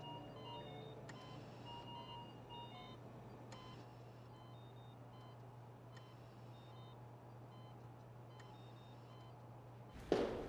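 Faint electronic beeps from hospital monitoring equipment, short tones at a few different pitches scattered irregularly over a steady low hum. Sharp steps or knocks start abruptly near the end.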